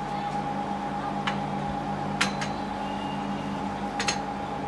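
A few sharp metallic clicks and clinks, the loudest a double click about two seconds in and another double click near the end, over a steady workshop hum with a constant high whine.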